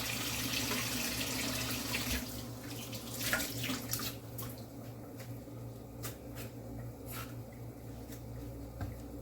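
Kitchen tap running for about four seconds, then shut off, followed by a few light clicks and taps.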